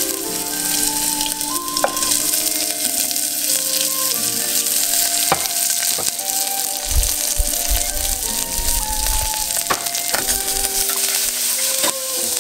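Chopped green onions and ginger sizzling in hot peanut oil in a nonstick saucepan, with a steady frying hiss. A wooden spoon stirs them, knocking against the pan a few times.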